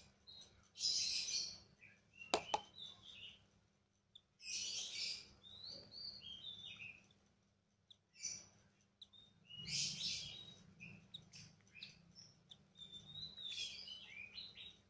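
Lovebird chicks begging for food as they are hand-fed: four loud, noisy squawking bursts about four seconds apart, with short chirps in between. A single sharp click sounds about two seconds in.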